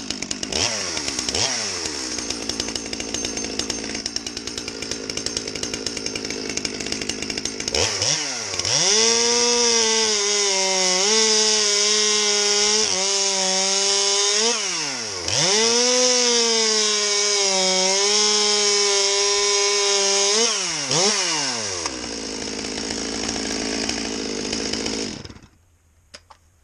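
Stihl MS200T top-handle chainsaw's two-stroke engine with its standard muffler, blipped a few times and idling. About eight seconds in it is held at full throttle through two cuts in a log, its note sagging under load in each cut with a short dip between them. It then drops back to idle and is shut off about a second before the end.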